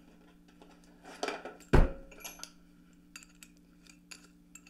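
Handling noises as a cordless drill and drill bit are picked up: a short clatter, one heavy thud a little under two seconds in, then a few light metallic clicks and clinks.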